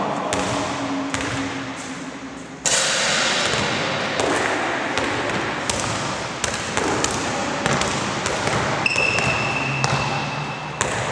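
A basketball bouncing and knocking on a gym floor, echoing in a large hall over a steady background din that jumps up suddenly about a quarter of the way in. Near the end a steady high tone sounds for about two seconds.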